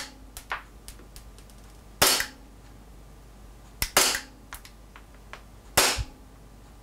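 WE G-Force G19 gas blowback airsoft pistol on green gas fired about every two seconds, each shot a sharp pop with the slide cycling. It is being shot through a chronograph, clocking about 0.8 joules.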